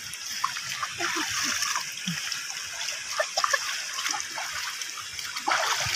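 Water splashing as a child swims and wades through a shallow stream pool, with small irregular splashes over a steady rush of flowing water and a louder splash about five and a half seconds in.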